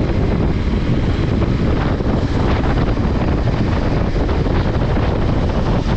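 Wind buffeting the microphone of a moving motorcycle, a loud steady rush with the bike's running noise underneath.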